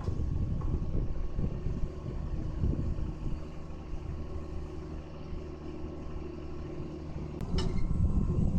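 Wheeled excavator's diesel engine running steadily while the hydraulics work a rotating stone grab. A single sharp metallic knock comes near the end, and right after it the engine grows louder.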